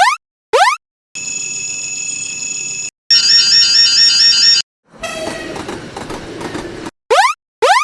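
A sequence of cartoon sound effects: two quick rising whistle-like sweeps, then a held electronic tone, a fast warbling two-note electronic tone, a stretch of train running noise, and two more rising sweeps near the end.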